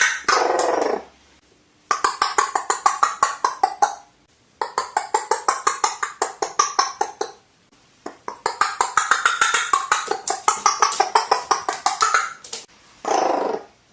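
Crow giving its rapid knocking rattle call, runs of sharp clicks at about nine a second, each two to four seconds long. A short harsh call comes twice, about half a second in and again near the end.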